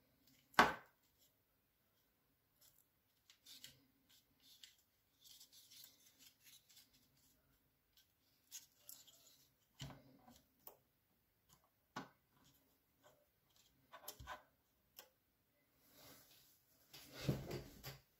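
Hard plastic parts of a car's third brake light being handled: a sharp plastic click about half a second in, then scattered small clicks and rubbing as the clear LED strip carrier is turned in the hands, and a louder rustle near the end as it is laid down on a desk mat.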